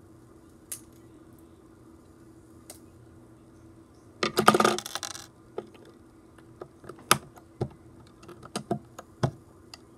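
Plastic Lego bricks clattering and clicking: a rattle of loose bricks lasting about a second, starting about four seconds in, then a string of sharp single clicks as pieces are pulled off the build and set down.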